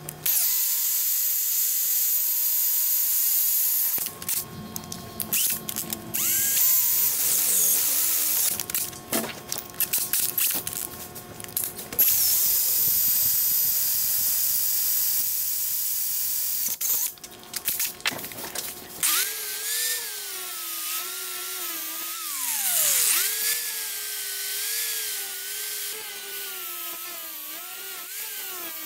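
A DeWalt 20V cordless drill boring a hole through a flat steel bar clamped in a vise, the bit cutting in long stretches with short pauses between. About two-thirds of the way through it gives way to an angle grinder grinding the steel, its whine wavering in pitch as it is pressed against the metal.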